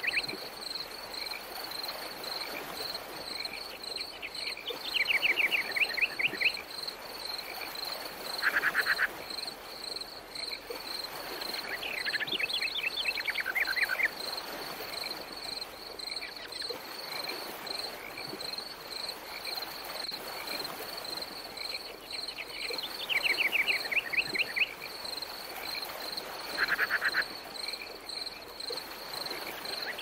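Crickets chirping in a continuous, high, rapidly pulsing note. Short rattling trills from another animal break in several times and stand out above it.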